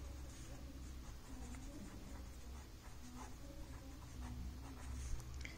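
A pen writing on paper: faint, quick scratching strokes as words are written out.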